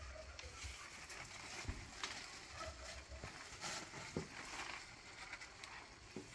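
Rustling and crackling of squash plant leaves and stems as squash blossoms are picked by hand, with a few sharp clicks scattered through.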